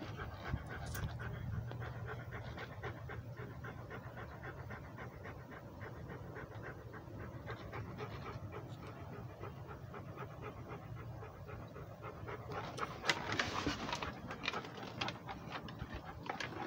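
Rhodesian ridgeback panting steadily with its mouth open, getting louder for a second or two about thirteen seconds in.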